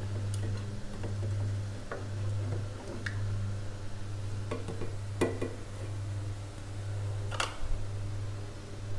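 A black kitchen ladle stirring a thick chili and tempoyak paste in a stainless steel saucepan, with occasional knocks and scrapes against the pot. The sharpest knocks come about five seconds in and again about seven and a half seconds in, over a steady low hum.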